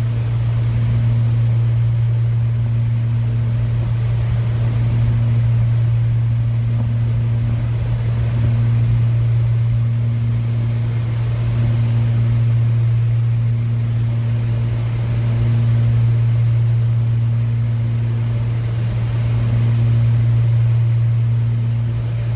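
Low electrical hum from a repaired radar unit running, steady throughout, with a higher tone above it switching on and off about every second and a half.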